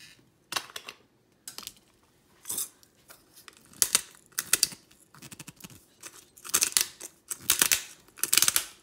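Pepper being dispensed over the batter: repeated short, gritty crackling bursts, about a dozen of them, coming faster and closer together in the second half.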